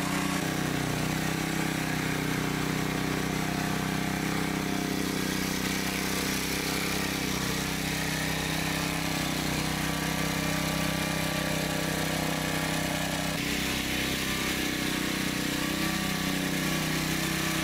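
Small engine of a garden tiller running steadily as it churns and loosens the soil.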